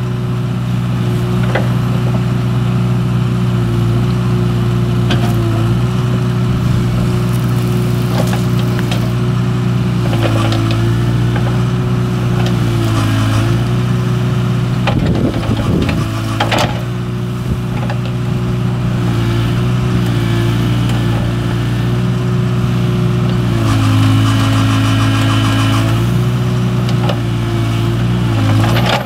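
Kubota mini excavator's diesel engine running steadily under work, its pitch dipping briefly several times as the arm is worked. Occasional sharp cracks and knocks sound over it.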